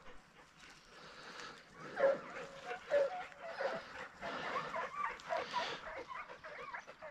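A pack of hunting hounds baying and yelping as they chase a rabbit, many short overlapping calls, loudest about two and three seconds in.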